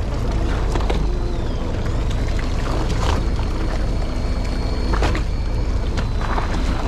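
Fishing boat on open sea: a steady low rumble of the boat and wind on the microphone, with several short swishes of water against the hull.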